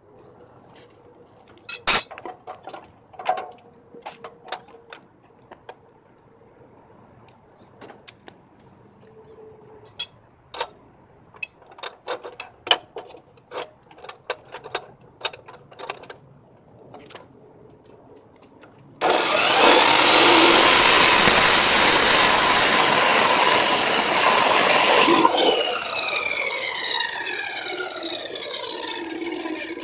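Knocks and clicks of tools being handled, with one sharp clack about two seconds in. About two-thirds through, a sudden loud rushing roar that drops a step after a few seconds and tapers off with rising whine tones: the gas forge's burner and blower being fired up.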